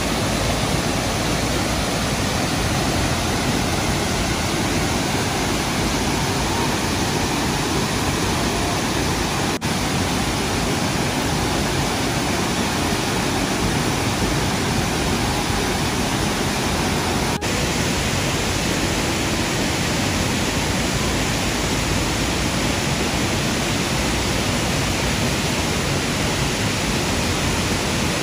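Waterfall rushing steadily, many streams of water spilling down a cliff and plunging into a pool, a dense, unbroken roar of water noise.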